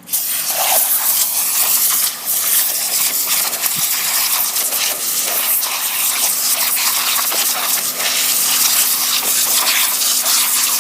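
Pressure washer wand firing a high-pressure jet of water onto fruit and vegetables, a loud steady hiss and spatter that starts abruptly at the trigger pull, with a brief dip about two seconds in. A steady low hum runs underneath.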